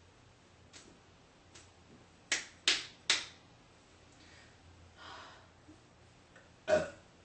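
A woman burping in short, abrupt bursts: three quick ones in a row, then a fuller single burp near the end.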